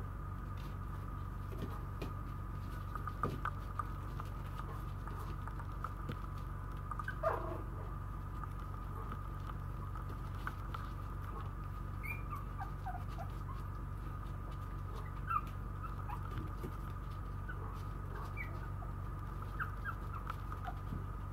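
Maltese puppies playing: claws clicking and pattering on a tile floor, with a few short high whimpers, the longest about seven seconds in, over a steady hum.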